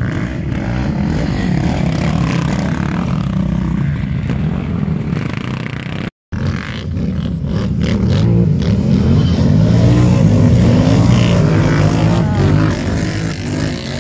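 Racing ATV (quad) engines revving, the pitch rising and falling as the throttle is worked. The sound cuts out for a moment about six seconds in.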